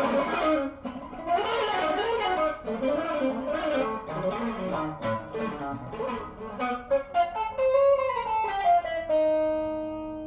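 Electric guitar played alone: quick picked notes with bends and vibrato, a slide down in pitch, then a chord held to ring and slowly fade near the end.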